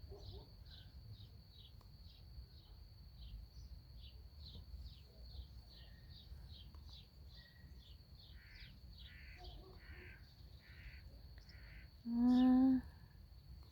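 Crickets chirping steadily in a high, even rhythm of about two or three chirps a second. Near the end comes one short, loud pitched call, with a few fainter calls shortly before it.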